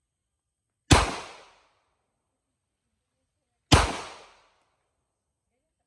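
Two shots from a semi-automatic pistol, about three seconds apart, each a sharp crack that dies away over about half a second.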